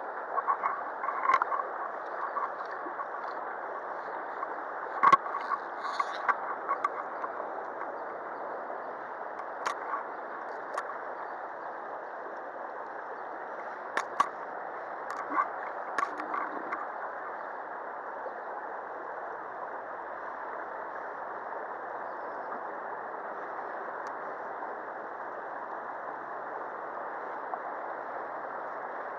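Steady rush of a shallow stream's flowing water, with a few light clicks and knocks scattered through it, the strongest about five seconds in.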